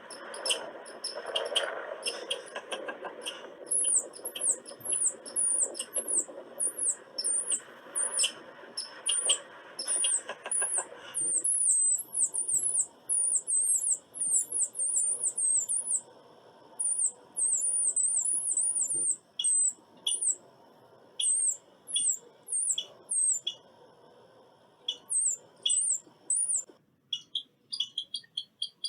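Squirrel giving rapid runs of short, high-pitched squeaky chirps, over clicking and a background hiss that stops about a third of the way in. Near the end the calls change to a sparser, different chirping.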